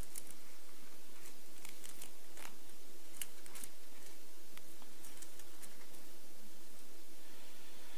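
Thin Bible pages being turned and leafed through by hand: a scatter of short, crisp paper rustles and ticks over a steady hiss.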